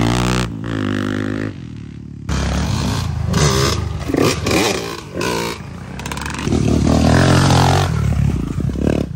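Dirt bike engines revving hard again and again, pitch climbing and falling, as the rear wheels spin to roost mud. The sound breaks off abruptly a couple of times.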